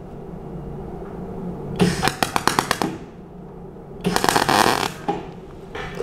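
MAG (gas-shielded wire) welding torch setting a spot weld on thin steel sheet. The arc sputters with a run of irregular pops for about a second, then after a pause crackles in a denser burst of just under a second, with a short blip near the end. The setting is too hot for the gap, and the weld burns a hole through the sheet.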